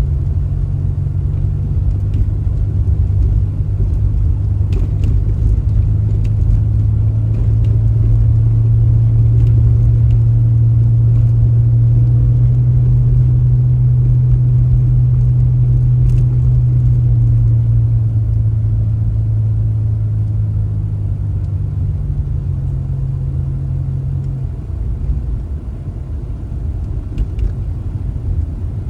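A motor vehicle running, heard as a steady low drone that grows stronger partway through and eases off near the end.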